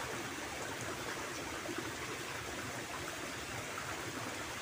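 Small rocky stream running over stones, a steady rush of flowing water.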